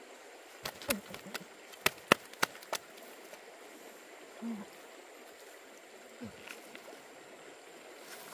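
Running stream water, steady throughout, with a quick series of sharp clicks and knocks in the first three seconds.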